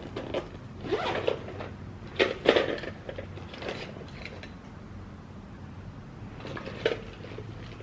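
Irregular handling noise of fabric being worked by hand: short rustles with small clicks and knocks, loudest about two seconds in, with a sharp click near the end.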